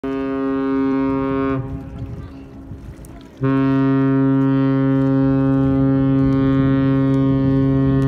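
Evergreen container ship's horn blowing two deep, steady blasts: a short one that cuts off after about a second and a half, then after a pause a long blast that is still sounding at the end.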